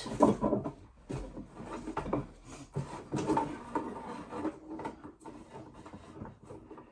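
Irregular rubbing and scraping with short, light knocks, from hands-on work with cable and wood at the floorboards.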